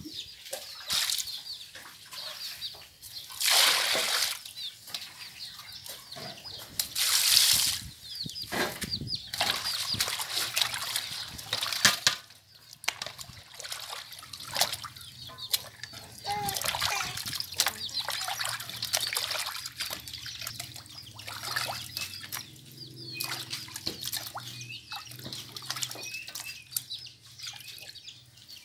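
Hands sloshing and splashing skinned frogs in a steel basin of water as they are washed, in many short splashes. There are two louder rushes of water about four and seven seconds in.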